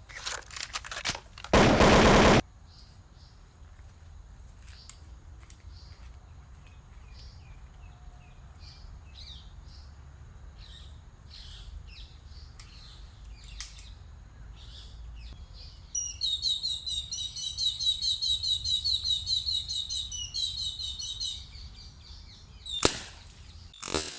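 Birds chirping, with a loud rapid chirping trill for several seconds, then two sharp bangs about a second apart near the end: a B31 air rifle firing and the struck cigarette lighter bursting. A short loud burst of noise comes early on.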